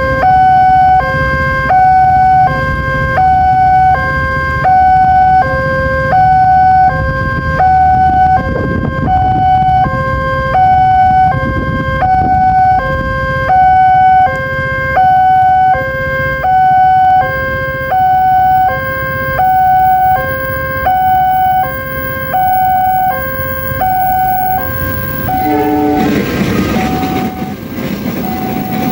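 Railway level-crossing warning siren sounding a shrill, loud two-tone hi-lo alarm that alternates steadily between two pitches over a low rumble. About 26 seconds in the alternation breaks off and the noise of an approaching train swells.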